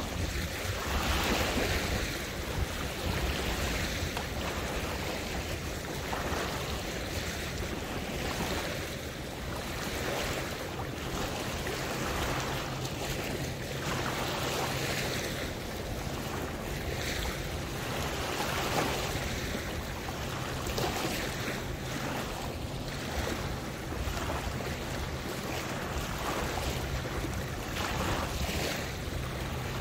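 Waterway water lapping and splashing in small waves, with a swash every second or two over a steady low hum.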